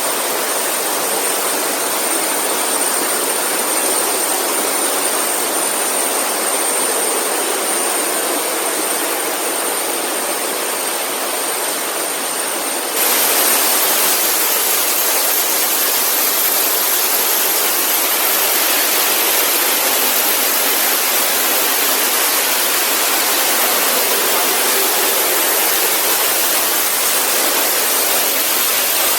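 Steady rush of a waterfall's falling water, stepping up louder and brighter about thirteen seconds in.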